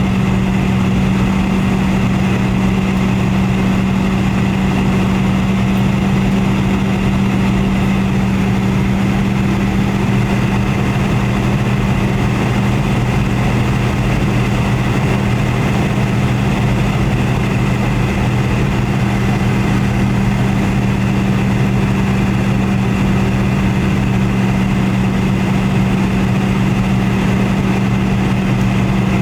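Steady cabin drone of a Boeing 717 airliner: its rear-mounted Rolls-Royce BR715 turbofans and the airflow make an even roar with a low steady hum, unchanging throughout.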